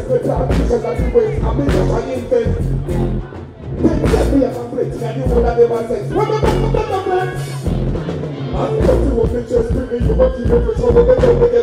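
Live dancehall reggae band playing with deep bass and drums, a male vocalist chanting into a microphone over it.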